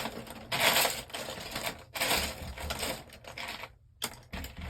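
Small plastic Lego pieces clattering in bursts as they are rummaged through by hand.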